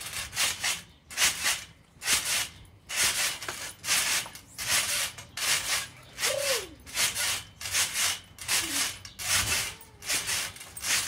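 A trampoline rasping in a steady rhythm as a child bounces on it, about two rasps a second.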